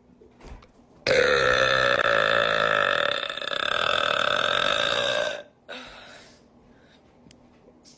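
A woman's single long, loud burp, lasting about four seconds. It starts suddenly about a second in and cuts off abruptly.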